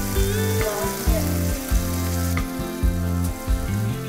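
Veal saltimbocca wrapped in prosciutto sizzling in butter in a frying pan, with background music with a steady beat.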